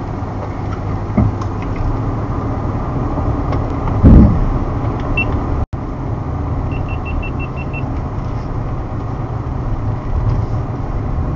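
Steady low rumble of a car driving, engine and tyre noise heard from inside the moving car. There is a loud thump about four seconds in, a brief dropout, and then a quick run of seven short high beeps.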